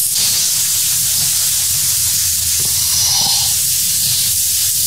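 Soft hog-hair detailing brush scrubbing back and forth over automotive carpet wet with spot cleaner, a steady hiss of bristles on fibre, as the cleaner is worked into a red stain.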